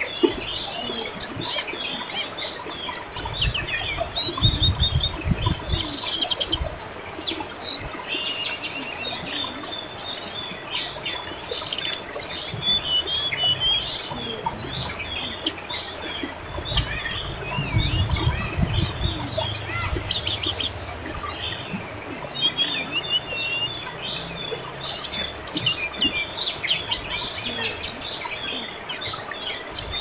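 Many small birds chirping and trilling, call after call, over the steady babble of a river's flowing water. A low rumble comes in briefly a few seconds in and again a little past the middle.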